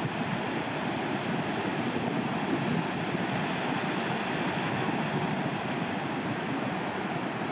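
Steady noise of huge ocean waves breaking and churning into white water, with no change in level.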